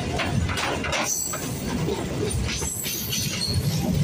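Two EMU local trains passing each other on adjacent tracks, heard from the open doorway of one of them: a steady rumble and clatter of wheels on rails, with brief high squeals about a second in and again near three seconds.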